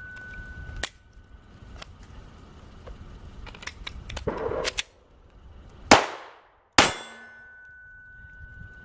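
Glock 19 9mm pistol shots during a fire-and-reload drill: a couple of sharp reports about one and two seconds in, clicking and rattling of magazine handling in between, then the two loudest shots near six and seven seconds in, each trailing off in a brief echo.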